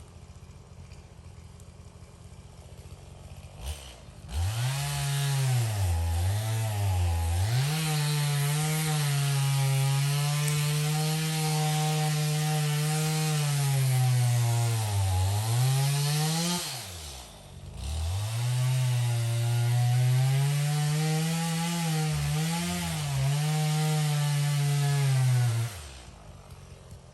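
Chainsaw running at high revs and cutting wood, its pitch sagging and recovering as it loads up in the cut. It starts about four seconds in, drops out for about a second two-thirds of the way through, then runs again until it stops shortly before the end.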